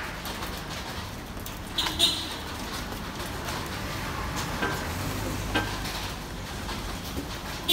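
Steady outdoor background hiss, with a few short high squeaks or clinks, the loudest about two seconds in and again at the end.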